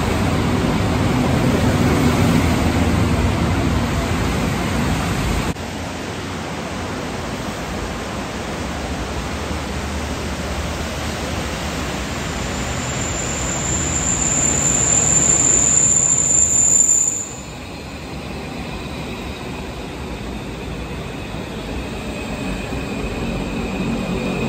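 Santiago Metro AS-02 train running through rain, its rumble over a steady hiss of rain. A thin, high, steady squeal sounds for about four seconds near the middle. The sound drops abruptly twice.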